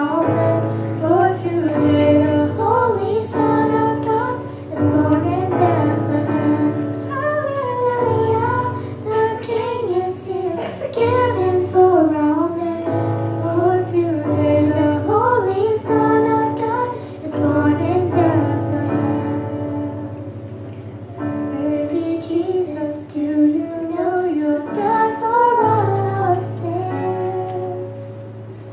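A girl and a woman singing a Christmas song together through microphones, over instrumental accompaniment.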